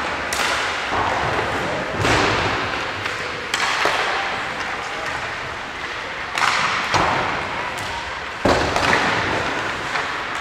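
Hockey pucks cracking off sticks and banging into the boards during a shooting warm-up, about seven sharp hits spaced a second or two apart, each echoing through the rink.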